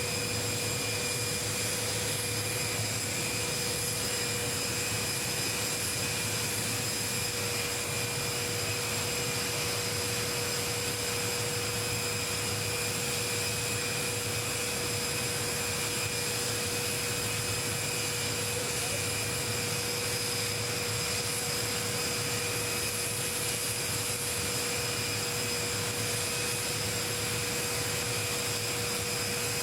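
Steady whine and rush of a jet aircraft running at idle, with several constant tones over a broad hiss and no change in pitch or level.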